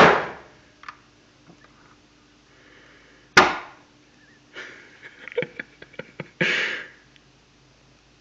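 A person close to the microphone makes sharp breathy hisses, three of them about three seconds apart, with a quick run of mouth clicks between the second and third.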